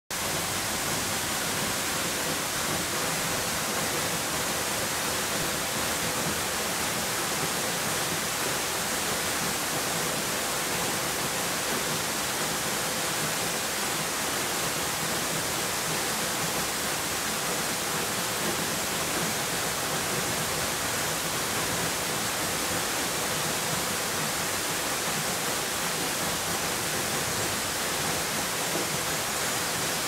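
Hossawa Falls, a tall, narrow waterfall, pouring down a rock face into its pool: a steady, unbroken rush of falling water.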